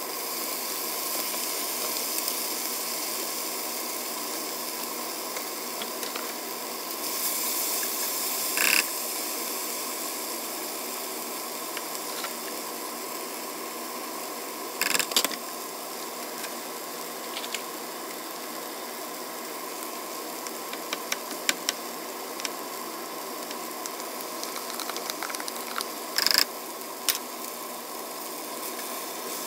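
Kimchi, pork and green onion stir-frying in a nonstick pan: a steady sizzle throughout, with a few sharp knocks and clicks of the utensils against the pan, loudest about a third of the way in, halfway, and near the end.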